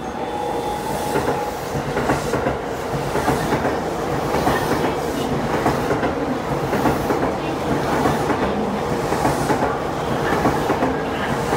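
A 10-car E233 series electric commuter train passing through a station at speed without stopping. The wheels rumble and clack over the rail joints in a repeating pattern as the cars run past close by.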